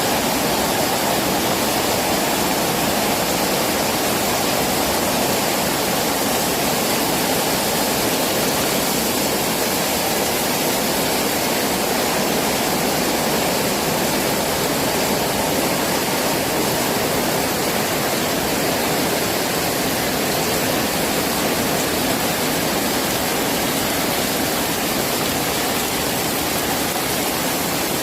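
Heavy rain falling steadily in a dense, even hiss with no separate drops or gusts standing out.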